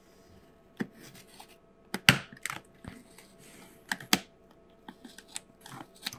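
A utility knife scraping through packing tape along a cardboard box's seam, and the cardboard being pressed and handled: irregular scratches, taps and tearing, loudest about two seconds in.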